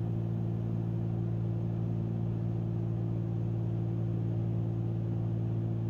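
Cessna 310Q twin piston engines and propellers running steadily in flight, heard from inside the cabin as a constant drone of several even low tones.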